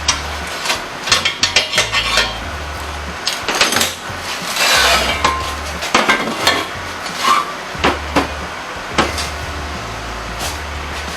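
Metal clinks and knocks from steel parts being handled and tapped, a dozen or so sharp strikes with a short hiss about halfway through, over background music with a stepping bass line.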